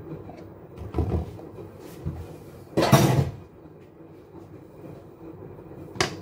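A plastic mixing bowl being handled on a stand mixer's base: a knock about a second in, a louder scrape and clatter about three seconds in, and a sharp click near the end.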